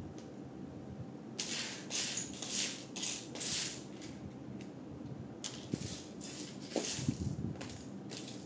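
Loose plastic Lego pieces rattling as a hand rummages through them, in two bouts of several quick shakes: one starting about a second and a half in, the other about halfway through.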